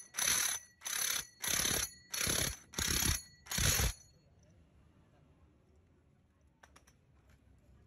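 Impact wrench hammering on a STIHL chainsaw's clutch nut to loosen it, in about seven short bursts roughly two a second with a metallic ring. The bursts stop about four seconds in.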